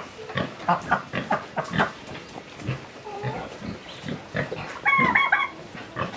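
Pigs grunting in short, repeated grunts, with a brief higher-pitched call about five seconds in.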